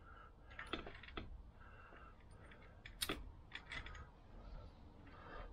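Faint, irregular metal clicks and taps of a hand tool working the crankshaft nut of a Vespa PX engine, tightening it further, the sharpest about three seconds in.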